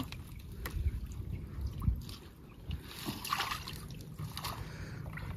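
Muddy water splashing and sloshing in uneven bursts as hands work in a flooded burrow, with a few small knocks and a busier stretch of splashing about three seconds in.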